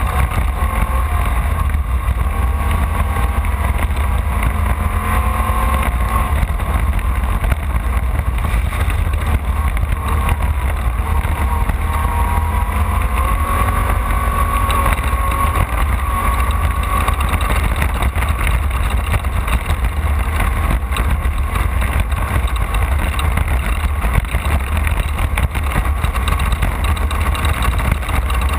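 Off-road race car's engine running hard at racing speed under a heavy, continuous low rumble from the car pounding over rough ground. The engine pitch rises and falls with the throttle.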